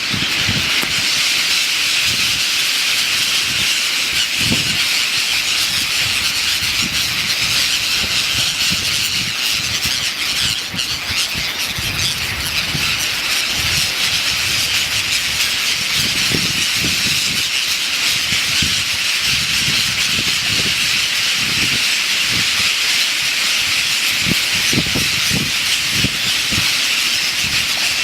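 A large flock of birds calling all at once, a dense, continuous high-pitched chorus with no break.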